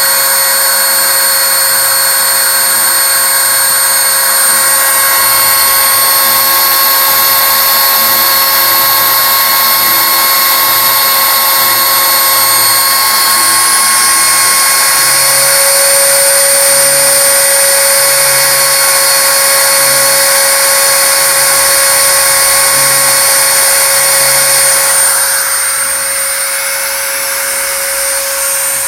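CNC router spindle running with a steady high whine over a loud motor noise, while lower hums come and go in short spells as the axis motors move the gantry. The sound drops slightly near the end.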